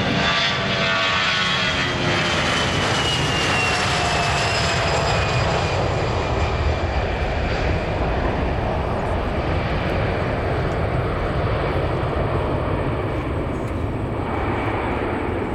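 Airbus A320-211 airliner's twin CFM56 turbofan engines at takeoff power as it rolls, lifts off and climbs out. A loud, steady jet roar, with engine whines falling in pitch over the first few seconds, easing off near the end.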